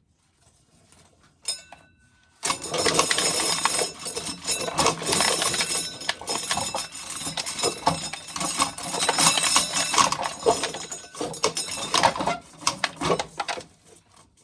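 An ear of corn being shelled, with dry kernels rattling and clattering off the cob for about eleven seconds. It is preceded by a single metallic clink.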